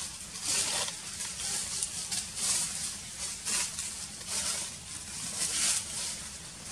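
Soft rustling in the trees, coming in irregular swishes about once a second, over a low steady rumble.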